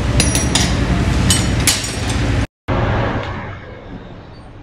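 Workshop noise: a steady mechanical rumble with several sharp metal clinks in the first two seconds. It breaks off briefly about halfway, then goes on as a quieter rumble that fades.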